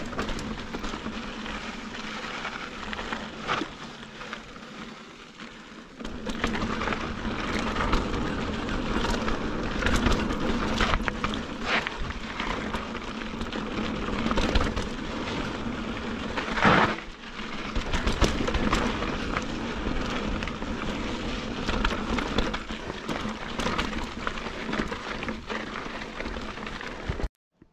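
Mountain bike riding over rocky, gravelly singletrack: a steady crunch and rattle of tyres and bike over loose grit, with frequent sharp knocks as the wheels hit rocks, the loudest about 17 seconds in, and a rough rushing noise over the camera microphone.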